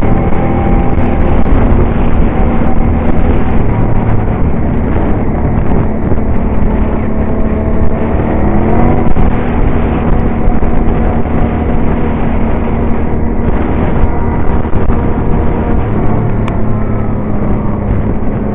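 Quad bike (ATV) engine running steadily at street-riding speed, heard from the machine carrying the microphone. The engine note rises and falls once about halfway through.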